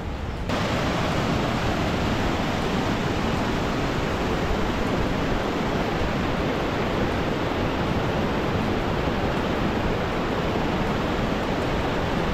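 Engstligenfälle, a tall mountain waterfall, and its torrent rushing over boulders: a steady, loud rush of falling water that steps up in loudness about half a second in.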